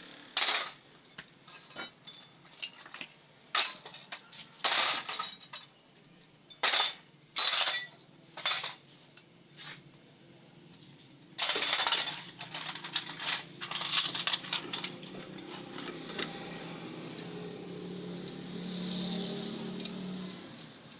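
Metal hand tools and car parts clinking and knocking against each other in irregular single strikes, with a denser run of clatter about halfway through.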